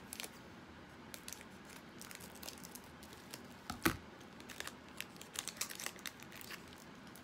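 Plastic wrapper of a trading card pack crinkling as it is handled and torn open by hand: scattered faint crackles, with one sharper crack about four seconds in.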